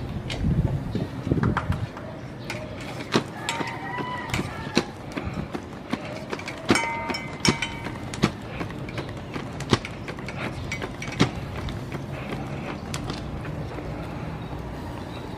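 Charcoal grill being fanned by hand with a paper fan, with air rushing at the microphone in the first two seconds and scattered sharp crackles and clicks throughout. Two short pitched calls sound in the middle.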